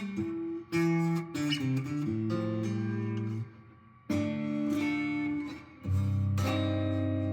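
Fender Telecaster electric guitar played clean: a few quick picked notes, then chords struck about every two seconds and left to ring out.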